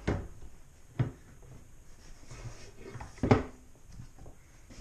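Wooden runner knocking and bumping against the OSB worktop as it is held and positioned for fitting: a sharp knock about a second in and a louder one about three seconds in, with quieter scraping and handling between.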